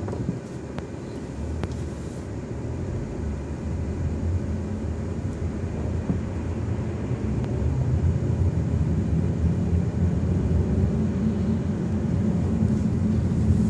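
Car engine and road rumble heard from inside the cabin, a low, steady rumble that grows gradually louder as the car pulls away and gathers speed.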